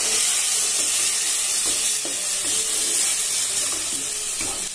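Ground spiny gourd seed paste frying in hot oil in a kadai, sizzling steadily as a spatula stirs it through fried onions and spices.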